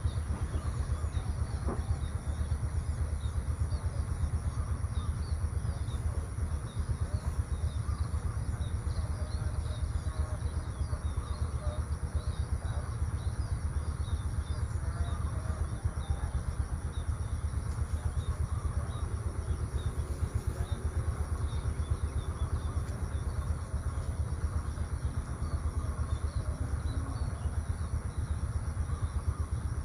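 Outdoor morning ambience: a steady low rumble under many small, high bird chirps, with a steady thin high whine.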